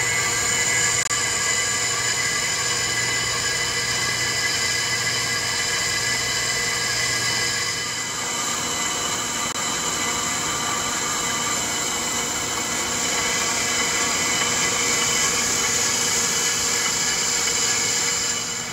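Accu-Turn 8922 brake lathe spinning a brake rotor while its twin cutting bits take a pass across both faces: a steady machining whir with several high, steady ringing tones. A brake pad is held against the rotor to keep the vibration down.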